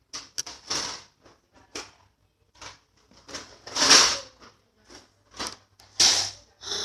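Slime being squeezed and pressed by hand, squishing and crackling in a dozen or so irregular short bursts, the loudest about four and six seconds in.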